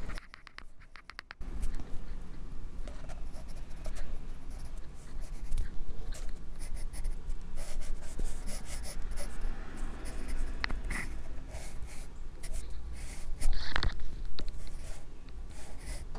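Pencil scratching on drawing paper in short, quick sketching strokes, with a brief lull near the start.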